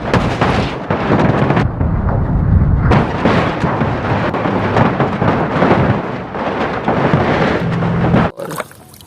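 Strong stream of water spraying onto a plastic toy truck, a loud steady rushing noise with a low hum underneath, cutting off suddenly near the end.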